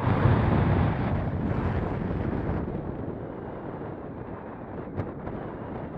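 Strong wind buffeting the camera's microphone. It is loudest in the first second or two and then eases off, with a single sharp click about five seconds in.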